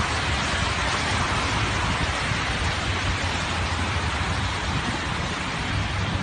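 Steady hiss of rain and traffic on a wet highway, with a low rumble underneath.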